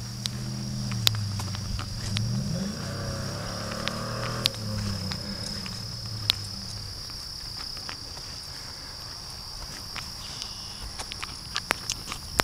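Insects chirring in one steady high tone throughout. A vehicle engine's low hum rises and falls in pitch through the first half, then fades. Scattered sharp ticks, thickest near the end.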